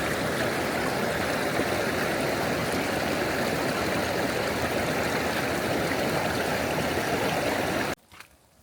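Steady rush of flowing water, like a creek running, cutting off abruptly near the end.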